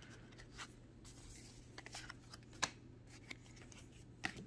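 Pokémon trading cards and a booster pack being handled and set down on a playmat: faint rustling with a few light clicks and taps.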